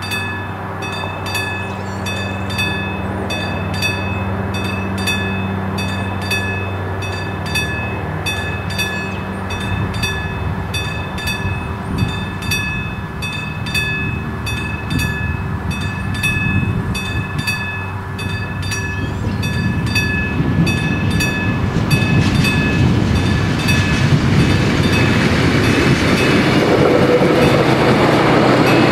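A level crossing's classic mechanical warning bell ringing in rapid, even strokes while a train's running noise builds. From about twenty-two seconds in the train is louder than the bell as it rolls over the crossing, its wheels clacking over the rails.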